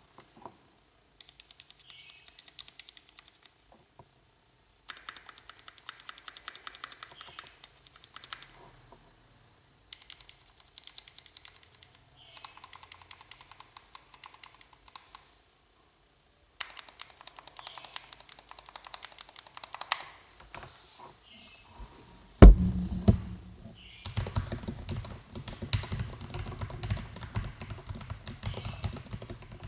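Typing on a Poker Pro mechanical keyboard with lubed Cherry MX Red linear switches, modded and greased stock stabilizers and foam-damped case, in several runs of quick keystrokes with short pauses between them. About two-thirds through comes a single loud thump, after which the typing is louder and deeper.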